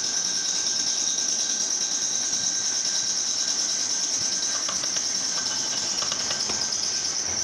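Steady high-pitched hiss of workshop noise, with a few light metallic clicks over the second half as parts of a piston water pump are fitted by hand.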